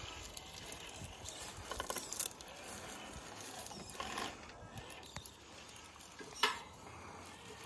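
Traxxas TRX-4 scale crawler's geared drivetrain running faintly as it crawls over rock. A few short crackles come around two and four seconds in, and the loudest about six and a half seconds in.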